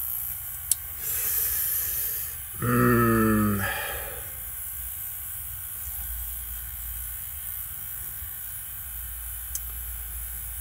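Hiss and static from a VCR playing back a mold-damaged VHS tape. A sharp click comes about a second in, then a burst of hiss and a short pitched hum. After that only a steady low hum remains, with a faint click near the end.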